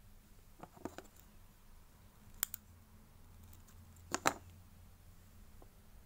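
A few light, sharp clicks from hands handling clay and small tools on a worktable: a short run of clicks about a second in, then two quick double clicks a little under two seconds apart.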